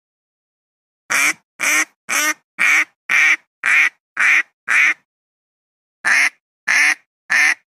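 A wild duck quacking in a regular series: eight quacks about two a second, a short pause, then three more. The quacks are played as a lure call to bring wild ducks down to hunters.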